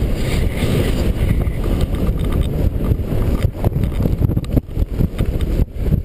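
Strong gusty wind buffeting a GoPro camera's microphone: a loud, rough low rumble that swells and drops with the gusts, dipping briefly twice near the end.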